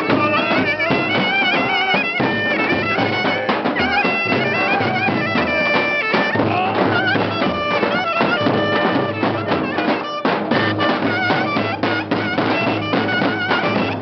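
Turkish folk dance music led by a shrill reed wind instrument playing a wavering, ornamented melody over a steady drum beat.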